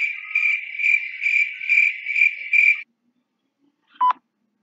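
Chirping-crickets sound effect, the comic gag for an awkward silence: a high trill pulsing about two or three times a second, stopping abruptly nearly three seconds in. A short beep follows about four seconds in.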